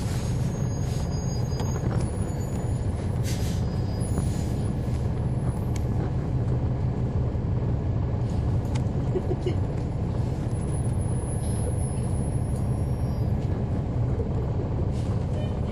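Interior sound of a 2011 NABI 40-SFW transit bus, its Cummins ISL9 inline-six diesel running steadily as a low, even drone, with a few short high clicks and hisses over it.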